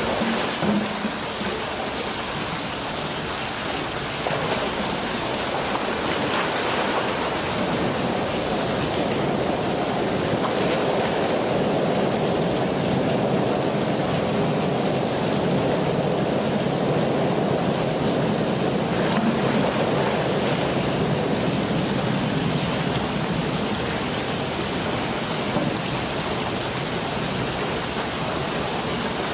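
Splash of a polar bear plunging into its pool at the start, then steady rushing, sloshing water.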